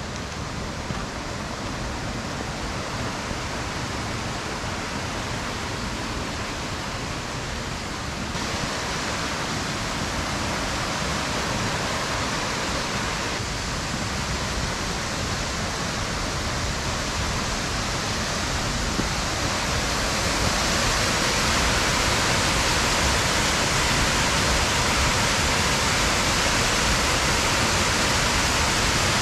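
Steady rush of falling water from a mountain waterfall or cascade, growing louder in two steps, about 8 seconds in and again around 20 seconds in.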